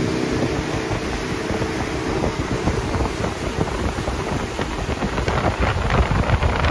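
Wind buffeting the microphone and water rushing and splashing past the hull of a motorboat running at speed, with a crackling, spattering texture throughout.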